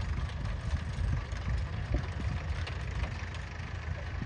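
Diesel tractor engine running steadily with a low rumble.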